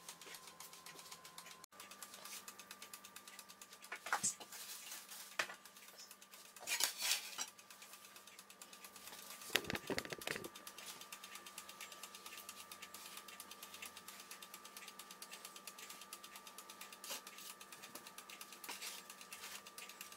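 Faint kitchen handling sounds of pide dough being shaped and set on a pizza peel: a few light knocks, a scrape a few seconds in, and a heavier knock about halfway through, over a steady faint hum.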